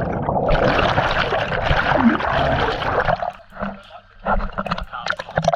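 Water splashing and sloshing, loud and continuous for about three seconds, then breaking up into scattered splashes.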